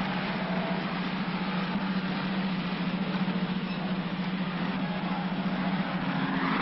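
A light van driving along, its engine running with a steady hum under constant road noise.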